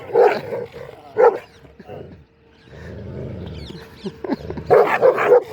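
Dogs barking and yipping in rough play: short barks at the start and about a second in, a low rumble in the middle, and a quick run of barks near the end.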